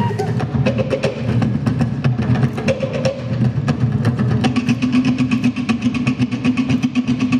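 Tahitian drum ensemble playing a fast, driving rhythm: wooden slit drums (to'ere) struck in rapid, even strokes over a steady low drumming.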